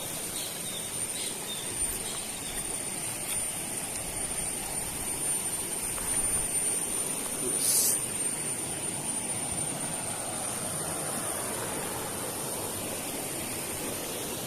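River water rushing steadily, with a thin, high, steady whine running through it and a short hiss about eight seconds in.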